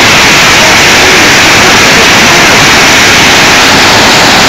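Torrential rain mixed with hail pouring down onto the yard, a loud, steady rush of noise that pushes the microphone close to overload.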